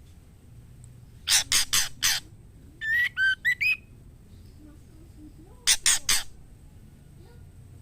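Female white-rumped shama calling for a male while in breeding condition: a quick burst of four harsh notes, then a short run of whistled notes sliding up and down, then three more harsh notes a couple of seconds later.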